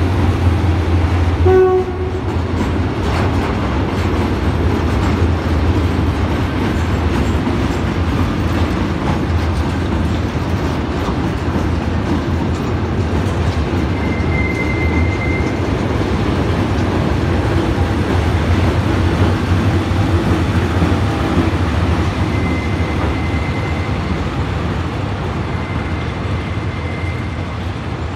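Train of ballast hopper wagons hauled by GEK diesel-electric locomotives rolling slowly past, a steady low rumble with the wheels clattering over the rails. A thin high squeal from the wheels comes in about halfway through and again briefly near the end.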